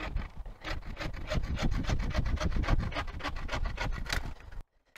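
Bow saw cutting through a thick wooden branch with quick, even back-and-forth strokes. The sawing stops abruptly near the end.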